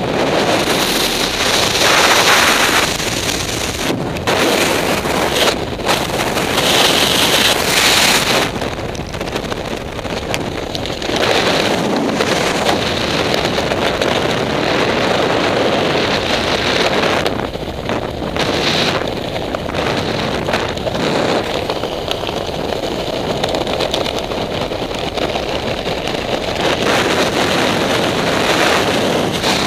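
Wind rushing over the microphone of a skydiver in freefall and then under a ram-air canopy: a loud, steady rush that thins a little about eight seconds in.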